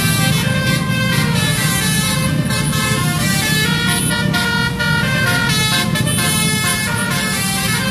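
Loud bus basuri horn, the multi-tone 'telolet' horn, playing a quick tune of changing notes over the bus engine running.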